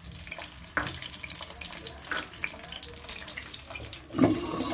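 Sliced garlic sizzling in hot ghee in a steel pan, with a couple of soft clicks. About four seconds in, a short louder scrape as the lid of a clay pot is handled.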